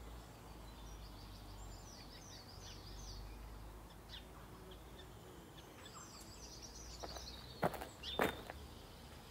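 Outdoor ambience of small birds chirping on and off over a low steady rumble. Two short sharp knocks come about half a second apart near the end.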